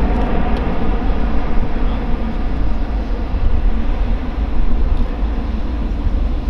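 Airbus A350-1000's twin Rolls-Royce Trent XWB-97 turbofans heard from the ground as the airliner flies away after a low pass: a loud, steady, deep rumble of jet noise.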